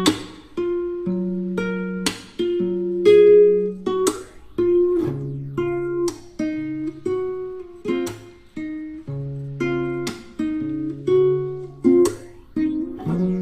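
Background music played on an acoustic guitar: strummed chords and plucked notes, a new chord about every second.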